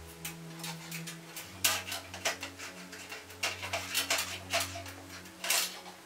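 A stiff wire coat hanger worked in under a Dyson CR01's drum, scraping and clinking against the metal of the drum and tub in a run of sharp irregular clicks. The clicks get louder from about a second and a half in. Low steady tones hum underneath.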